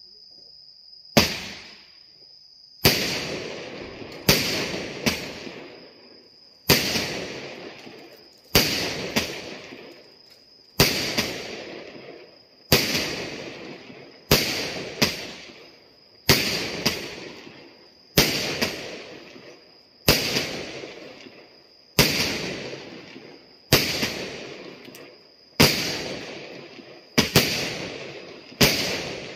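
A firework cake firing aerial shots one after another, a bang about every two seconds and often two in quick succession. Each bang is followed by a fading crackle of bursting stars. Crickets chirp steadily underneath.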